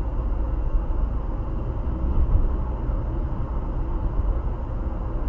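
Steady low rumble of road and engine noise inside a car's cabin, cruising at about 58 km/h.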